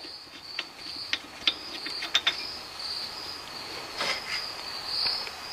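Scattered light metallic clicks and taps from handwork at the engine's crankshaft pulley, a cluster in the first half and another about four seconds in, over a steady high chirping of crickets.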